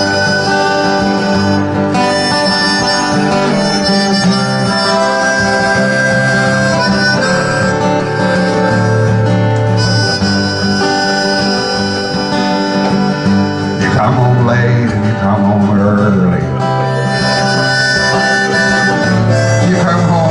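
Harmonica playing a melody over strummed guitar, the instrumental introduction of a folk song, with some bent notes a little past the middle.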